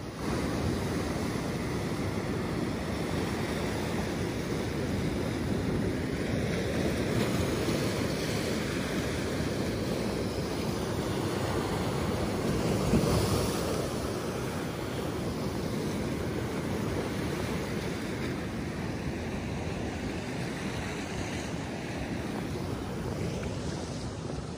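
Sea surf breaking and washing over shoreline rocks, a steady rush with one wave a little louder about halfway through, with wind buffeting the microphone.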